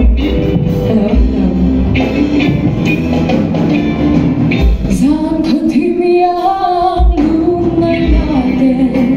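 Live band playing a song: a lead singer over electric guitars, keyboard and drums, with a long held sung note about halfway through, in a large echoing hall.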